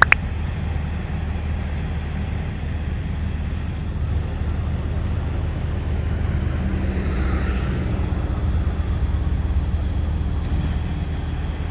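Vehicle running, a steady low rumble with road noise.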